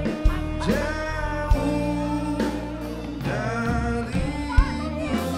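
Live band playing a song, with a man and a woman singing together in two voices over keyboard and drum kit, and a few kick-drum beats.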